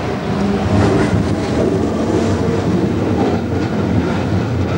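Shunting locomotive moving along street track: a steady low hum with the rumble and clatter of its wheels on the rails.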